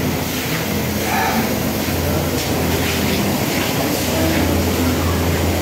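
Steady low roar of a busy restaurant kitchen, where gas stove burners are lit and a wok of food is frying, with faint voices over it.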